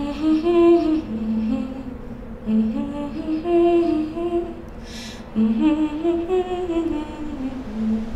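A woman humming a slow, wordless melody in three long phrases, with a short hiss about five seconds in.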